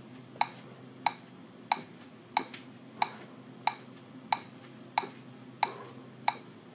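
Metronome clicking steadily at 92 beats per minute, a sharp click about every two-thirds of a second, ten in all.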